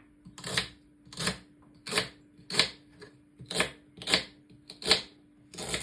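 Knife slicing through celery stalks onto a cutting board: about eight crisp, evenly paced cuts, roughly one every 0.7 seconds. A faint steady hum runs underneath.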